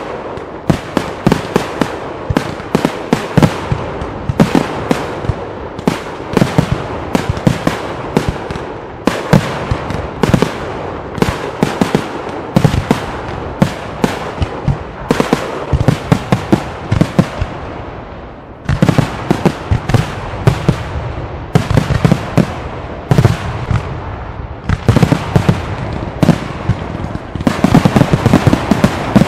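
Aerial fireworks finale: a rapid, near-continuous barrage of shell bursts and crackle. The bangs ease off briefly a little past the middle, then resume and come thickest near the end.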